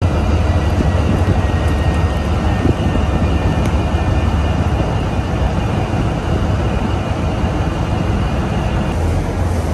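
Steady low drone of a ship's diesel engines, with a continuous rush of wind and water noise over it.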